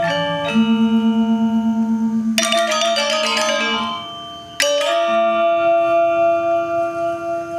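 Balinese gamelan playing: bronze metallophones struck in ringing notes, the low tones pulsing as they sound. About two and a half seconds in comes a rapid flurry of clashing strikes, then a loud accented stroke gives way to long ringing notes.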